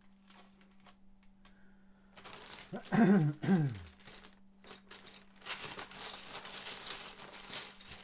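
Rummaging through a stash of loose plastic LEGO bricks: a rustling, clicking clatter of pieces that gets busier in the second half. About three seconds in, a short wordless hum falling in pitch is the loudest sound.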